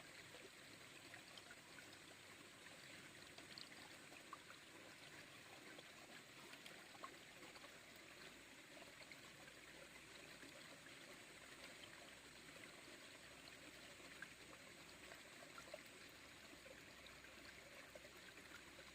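Faint flowing water of a small stream trickling steadily, with a few soft ticks.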